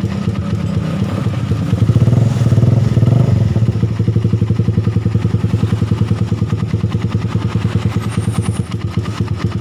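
Suzuki Satria FU's single-cylinder four-stroke engine idling, revved up briefly about two seconds in and then settling back to an even idle. It runs smooth, without the clattering knock at the cylinder head, its broken cam chain tensioner having been replaced with a bolt-type one.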